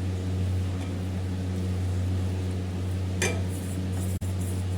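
A steady low electrical hum, with a single sharp clink of a utensil against a dish about three seconds in. The sound drops out for an instant just after that.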